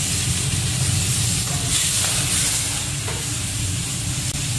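Marinated meat slices sizzling in a hot iron wok, stirred with a metal spatula: a steady frying hiss with a few faint scrapes of the spatula on the wok.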